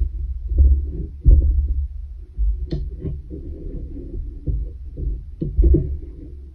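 Handling noise from weaving on a wooden pin loom: low, irregular thumps and rubbing as hands and a long weaving needle work through the yarn and knock against the frame, with one sharper click about two and three-quarter seconds in.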